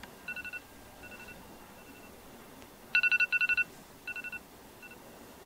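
Phone alarm going off: quick bursts of high electronic beeps, about eight a second. A loud burst starts the sound and another comes about three seconds in, each followed by fainter repeats.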